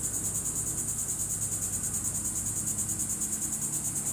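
Insects trilling in a steady high-pitched chorus that pulses evenly about eight times a second.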